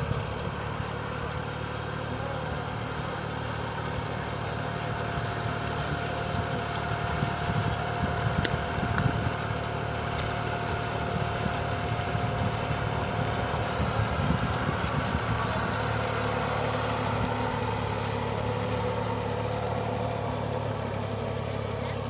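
Small cage-wheeled paddy tractor running steadily while it works a flooded rice field.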